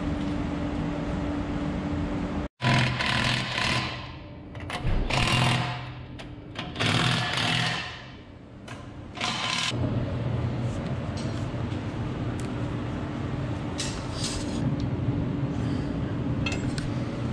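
An impact wrench running in four short bursts of about a second each, over a steady low machine hum.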